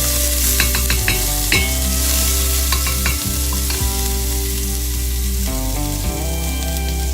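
Chopped garlic sizzling in hot oil in a frying pan as it browns, stirred with a utensil that clicks against the pan several times in the first few seconds.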